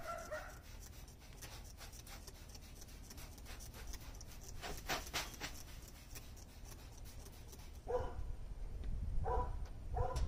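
Water sprayed from a trigger bottle onto a hot steel flat-top griddle, sizzling and crackling as it turns to steam, loudest about five seconds in. From about eight seconds, a few short, squeaky, yelp-like calls repeat about once a second.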